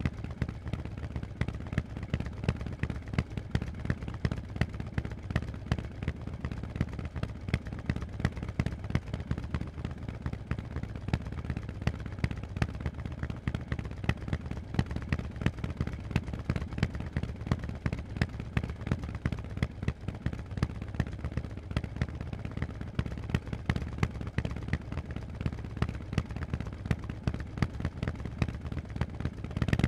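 Harley-Davidson Forty-Eight's air-cooled 1200 cc V-twin with Vance & Hines exhaust pipes running at low, steady revs: a rapid train of sharp exhaust pulses of uneven loudness over a low rumble.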